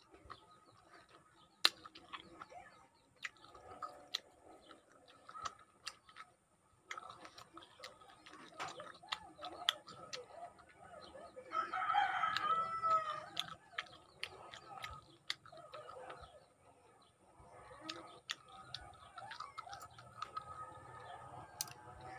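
Close, wet chewing and sucking sounds of a lemon slice being eaten, scattered clicks throughout, with a rooster crowing once about halfway through, the loudest sound here.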